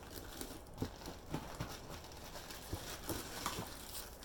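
Scattered light knocks and clicks of objects being handled and set down while unpacking a box, with faint rustling between them.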